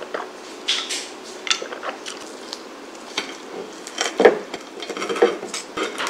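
Fork and knife clinking and scraping on a ceramic plate while cutting into an open sandwich on whole-wheat bread, as a run of short clicks and scrapes that grows louder and busier in the second half.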